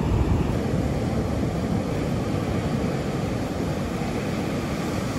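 Steady rush of breaking ocean surf with wind buffeting the microphone.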